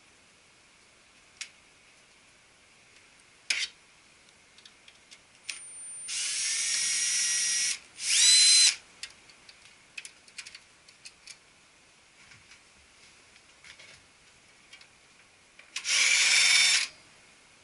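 Cordless drill-driver turning screws in a copier's frame, in three short runs: one of about two seconds, a louder brief one just after it, and another near the end. Each run starts with a rising whine as the motor spins up. Scattered sharp clicks of parts being handled fall between the runs.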